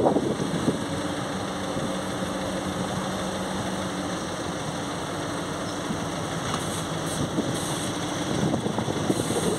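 SM42 diesel shunting locomotive running at idle: a steady engine drone under a broad rushing noise, a little louder near the end.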